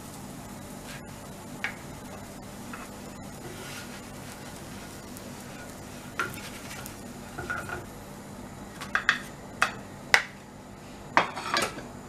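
Metal kitchen utensils clinking and scraping against cookware, with several sharp clinks in the second half, over a low steady sizzle.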